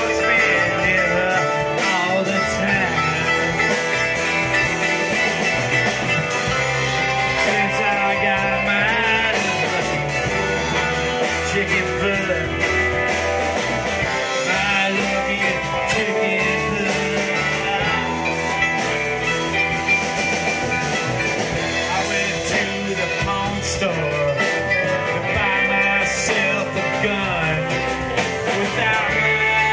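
Live blues-rock band playing: guitars, electric bass and drums, with a male voice singing over them at times.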